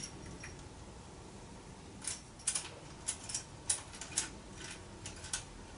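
A scatter of light clicks and taps, about ten of them, starting about two seconds in: hands working a camera and its mounting plate and screws on a DJI Ronin-MX gimbal.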